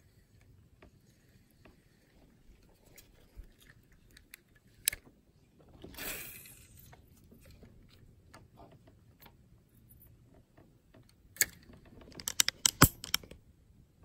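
Handling of a spinning reel and fishing rod: scattered light clicks, a short rushing swish about six seconds in, and a quick run of clicks shortly before the end.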